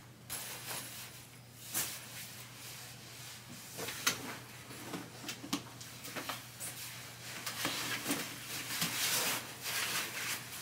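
Rustling and handling of a padded winter jacket and a backpack as they are taken from a closet and put on, with a few scattered knocks, over a faint steady low hum.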